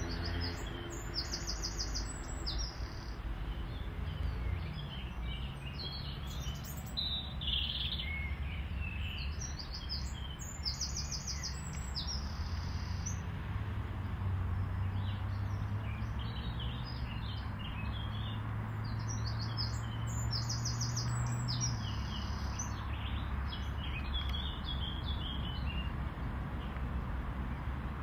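Songbirds singing in short, high trilled phrases, repeated again and again, over a steady low rumble of traffic; a low engine hum joins in the middle and stops about two thirds of the way through.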